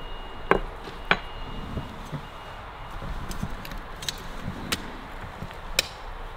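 A spanner working on the nuts of a Harley-Davidson WLA gearbox casing, giving a handful of sharp metal clinks and knocks at uneven intervals as the casing is drawn in. The loudest clinks come about half a second and a second in, and another comes near the end.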